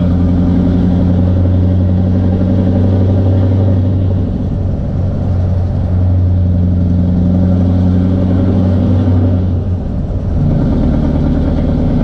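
Scania R650's V8 diesel running steadily under way, heard inside the truck's cab. Its note briefly drops out and picks up again twice, about four seconds in and near the end.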